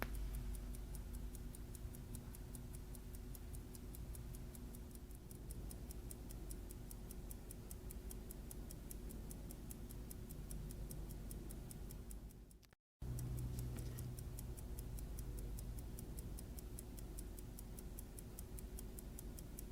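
A. Lange & Söhne pocket watch movement ticking steadily at about five ticks a second: the balance, just reinstalled with its hairspring, is running. The sound cuts out for a moment about thirteen seconds in.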